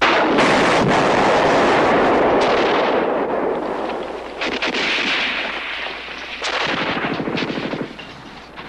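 A sudden loud explosion that rumbles on and fades over a few seconds, followed by scattered gunshots and a rapid burst of automatic fire near the end.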